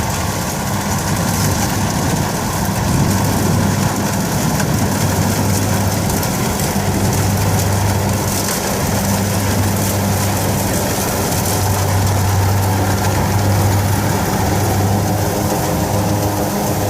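Kubota DC60 combine harvester running steadily while cutting rice: a constant diesel engine hum under the wide rushing noise of the cutting and threshing machinery.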